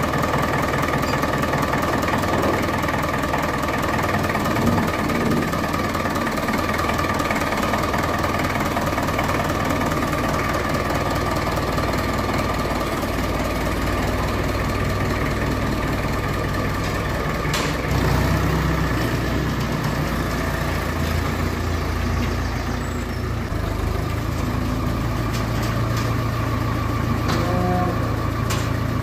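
An engine running steadily, a continuous low engine note with a steady higher whine over it.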